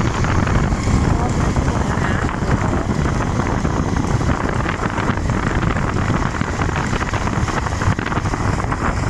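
Wind buffeting the microphone of a camera moving at speed, mixed with motorcycle engines running alongside: a loud, deep, steady rush with no break.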